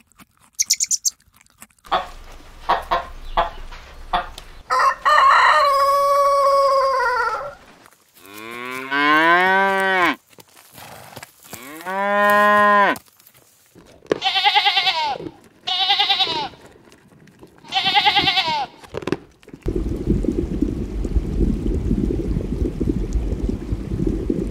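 Cow mooing twice, two long calls of a couple of seconds each, the first rising and then falling in pitch. Three shorter, higher animal calls follow, then a steady low rumbling noise.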